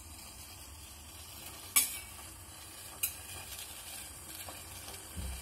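A pot of water boiling hard on a gas stove, a steady hiss, with two sharp clicks, the louder one about two seconds in and a second one about three seconds in.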